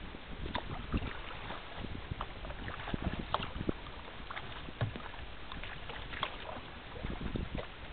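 Water splashing and slapping irregularly against the hull of a rotomolded sea kayak moving through choppy water, over a steady rush of water.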